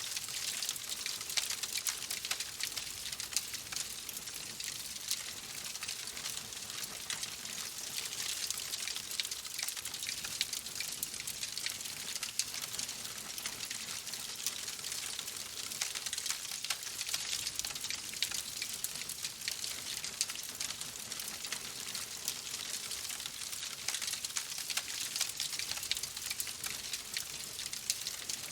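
Fireplace fire crackling steadily: a dense run of small pops and snaps over a soft hiss.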